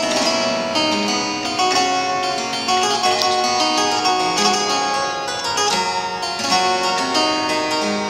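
Harpsichord being played: a quick, continuous stream of plucked notes in treble and bass together.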